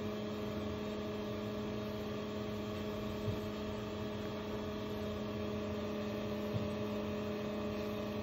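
Steady electric motor hum from the Prismaflex heparin syringe pump driving its pusher arm down to its lowest position, with two faint clicks.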